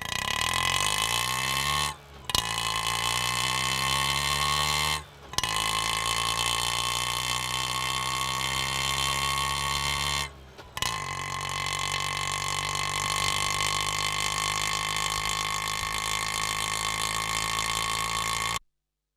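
Auto rickshaw engine running and rising in pitch over the first couple of seconds, then holding a steady note. The sound drops out briefly three times, about 2, 5 and 10 seconds in, and cuts off suddenly near the end.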